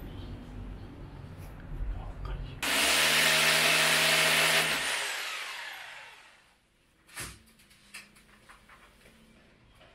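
A corded electric drill bores into the wall for about two seconds, then its motor winds down with a falling whine after the trigger is let go. A single knock follows.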